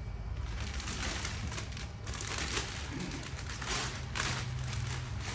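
Packaging being pulled off and handled, a string of irregular crinkling, rustling bursts.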